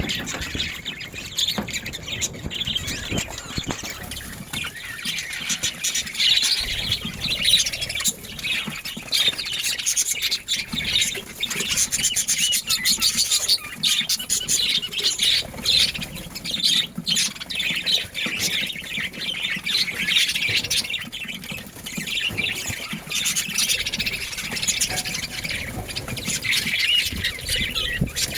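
Budgerigars chattering: a continuous stream of fast, high warbles and calls.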